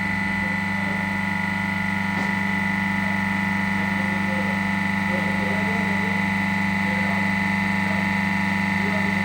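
Remanufactured Dorin H2500CC semi-hermetic reciprocating refrigeration compressor running steadily on a test run, a constant hum with a high steady whine over it.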